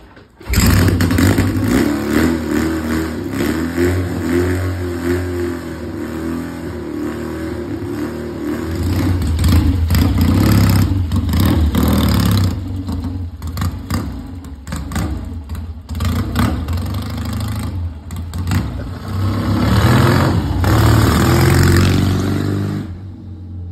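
Motorcycle engine kick-started, catching about half a second in, then running and revving up and down repeatedly.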